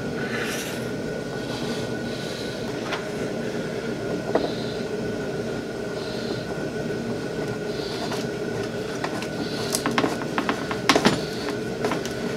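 Scattered hard plastic clicks and knocks as a key switch is worked into a Polaris RZR's plastic dash panel, with a quick cluster of them near the end, over a steady mechanical hum.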